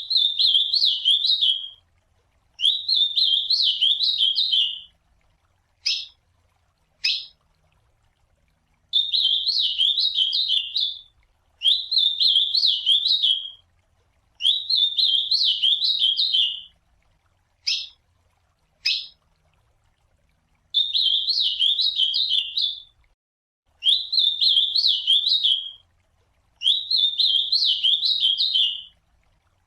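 Ultramarine grosbeak (azulão) singing: a series of warbling song phrases about two seconds long, repeated after short pauses, with a few brief single call notes between phrases.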